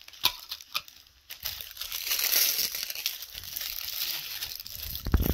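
Crinkly plastic wrapping of an L.O.L. Surprise ball being handled and pulled open: a couple of light clicks, then steady crinkling from about a second and a half in, with a low thump near the end.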